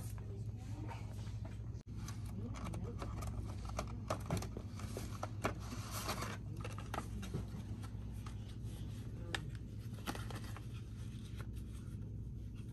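Indoor store ambience with a steady low hum, over which come scattered light clicks, taps and rustles of small cardboard toy packages being handled on a shelf.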